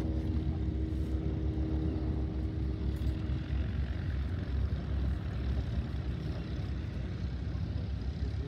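Distant small propeller planes' engines running: a low steady rumble, with a humming tone that fades away over the first couple of seconds.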